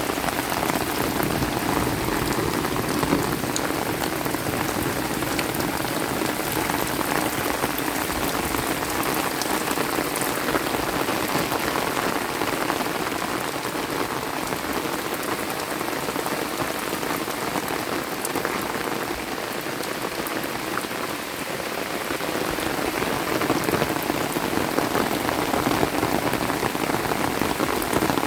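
Steady heavy rain falling, a dense even hiss with many small drop ticks, easing slightly about two-thirds of the way through and picking up again near the end.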